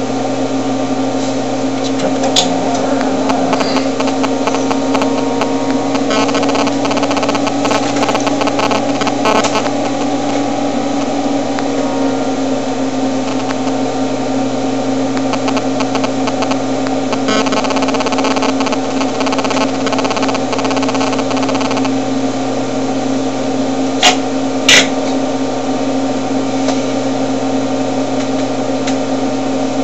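A loud, steady machine hum with no change in pitch, and two sharp clicks close together about three-quarters of the way in.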